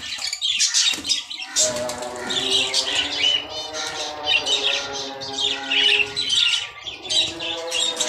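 A flock of small cage birds chirping and squawking continuously. From about a second and a half in, music with long held notes plays underneath the birds.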